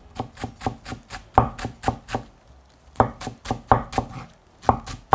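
Kitchen knife finely mincing garlic chives on a cutting board: quick, regular chops about five a second, with a short pause about halfway through.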